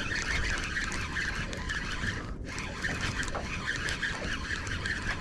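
Fishing reel being wound to bring in a hooked fish, giving a steady whirring that stops briefly about two seconds in and then resumes, over low wind and water rumble.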